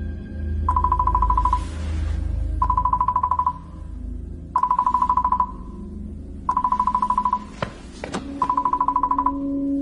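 Phone ringing with a trilling electronic ring, five bursts of about a second each, spaced about two seconds apart, over low background music. Two sharp clicks come between the last two rings.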